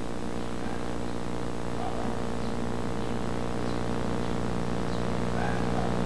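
A steady low hum with many overtones, growing slightly louder, with a few faint short chirps over it.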